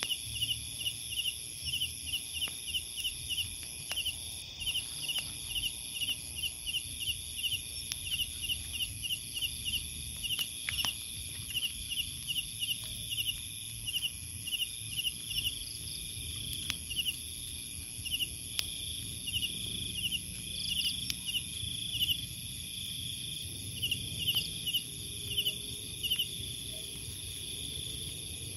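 Night insects: a cricket chirping in quick regular pulses, about three a second, in runs with short pauses, over a steady high-pitched drone of other insects.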